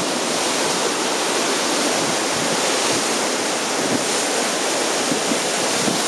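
Heavy ocean surf from a large swell breaking and washing along a rocky cliff shoreline: a steady, unbroken rush of white water.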